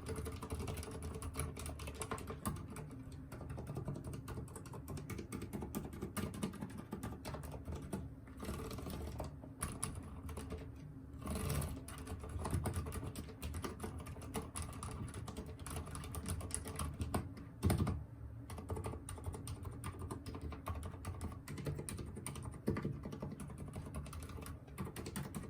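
Continuous typing on a mechanical keyboard with silent red linear switches: a dense, soft patter of muffled keystrokes with short pauses now and then and one heavier key hit past the middle.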